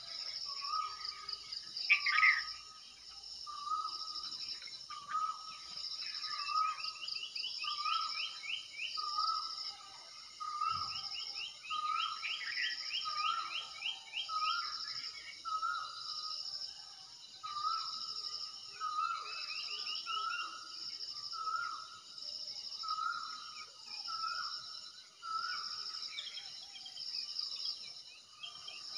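Birds and insects calling. One bird repeats a short call about once a second, other birds give quick rising trills now and then, and a high insect chorus pulses steadily underneath.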